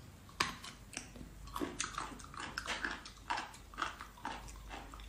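Biting and chewing of raw abalone: irregular crunches and mouth clicks, a few a second.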